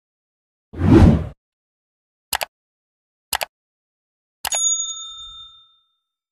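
Subscribe-animation sound effects: a whoosh about a second in, two mouse clicks about a second apart, then a click and a bright bell ding that rings out for about a second and a half.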